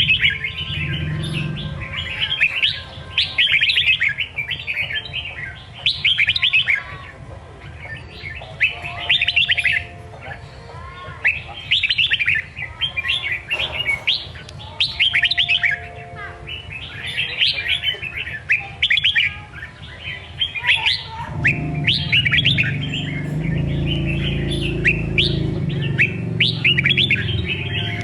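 Red-whiskered bulbul singing in the song style keepers call 'songkon': bright warbled phrases repeated every second or two. About two-thirds of the way through, a low steady rumble joins underneath.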